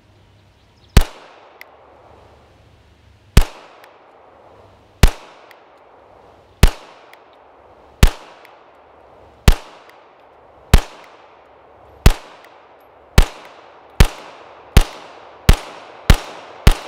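Canik TP9 DA 9mm pistol firing fourteen shots in single action, each followed by a short echo. The shots start about two seconds apart and quicken to under a second apart near the end.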